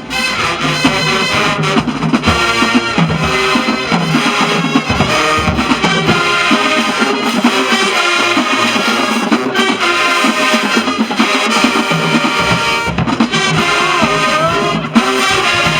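Marching band playing a tune, with horns over a drum line. The deep bass drops out for a few seconds in the middle, then returns.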